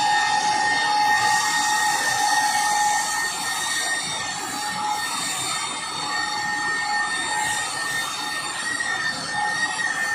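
Handheld electric car polisher running with its pad on the paint, a steady high motor whine that sags slightly in the middle as the pad is worked across the hood.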